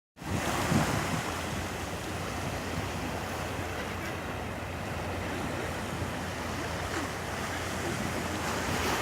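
Sea surf washing steadily against the shore, with wind rumbling on the microphone.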